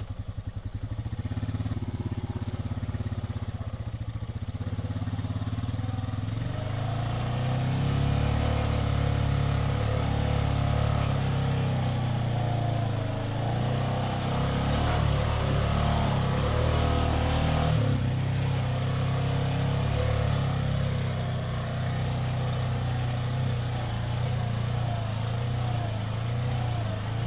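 Side-by-side UTV engine working in four-wheel drive as the machine crawls through deep mud ruts. The revs pick up about a quarter of the way in and ease off briefly past the middle.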